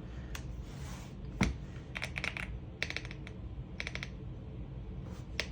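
AULA F75 mechanical keyboard being typed on: a few single key presses, then short bursts of rapid key clicks.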